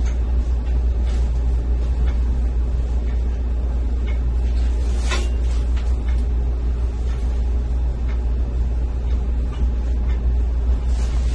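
A steady low hum throughout, the loudest sound, with faint rustling of a fitted bed sheet being rolled and tucked by gloved hands, and one sharper rustle about five seconds in.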